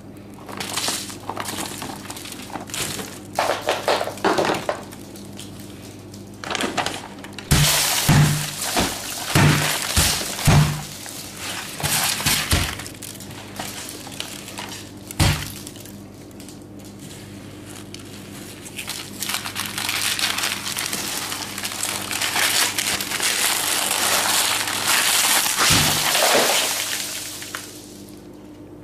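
Hands-on handling noise: scattered clinks and knocks, a run of about six sharp knocks roughly a second apart, then a long stretch of rustling and scraping that stops shortly before the end.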